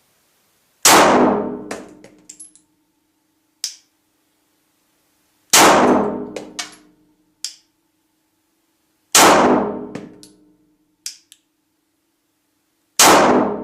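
Glock 17 9mm pistol fired four times in slow, deliberate shots about four seconds apart, each shot echoing in an enclosed basement range. Fainter clinks and ticks come in the pauses between shots.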